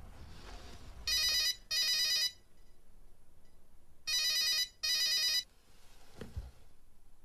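Telephone ringing with a double ring: two pairs of short rings about three seconds apart, an incoming call. A short low thump follows near the end.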